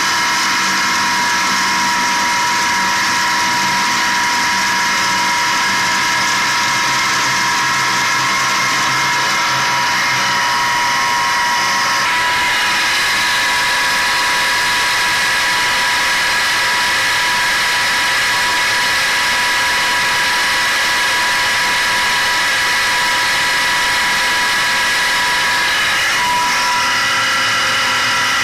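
An 18.5 kW Tesla-type disc sand pump and its electric motor running steadily under load while pumping a sand-water slurry: a loud, even mechanical whine made of several steady tones. The mix of tones shifts about twelve seconds in.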